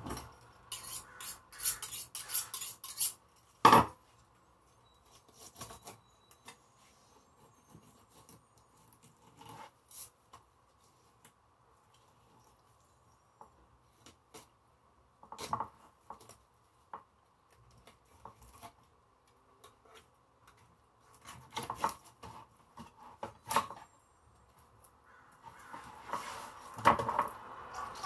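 Fillet knife cutting and scraping through a calico bass on a wooden cutting board: scattered rasping strokes of the blade against scales and bone, with a sharp knock about four seconds in and quiet stretches between the cuts.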